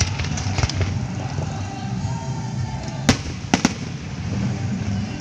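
Aerial firework shells bursting: a few light cracks in the first second, a loud bang about three seconds in, then two quick cracks half a second later, all over a steady low rumble.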